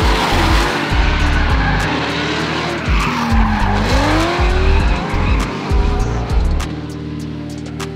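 Drift cars' engines revving and tyres squealing as the cars slide sideways, mixed with music that has a heavy bass beat. About three seconds in, an engine's pitch drops and then climbs back up.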